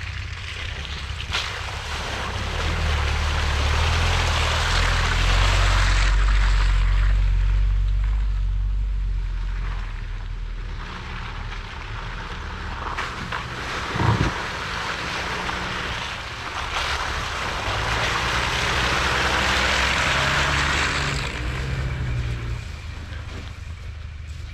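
SUV engines working under load on a muddy track, rising in two long surges, with a broad rushing noise of tyres and water over them. A sharp knock about fourteen seconds in.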